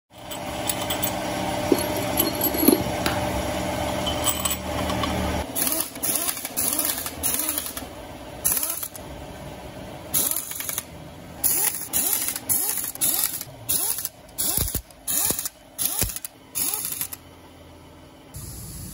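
Hand ratchet clicking in many short strokes, roughly two a second, as it runs down the crankcase bolts on an Isuzu 4HK1 engine block. A steady hum fills the first five seconds before the clicking starts.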